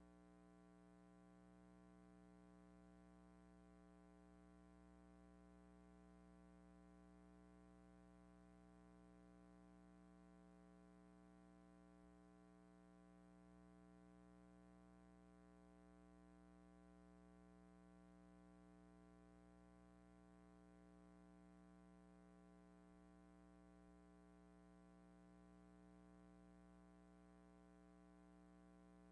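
Near silence with only a faint, steady hum.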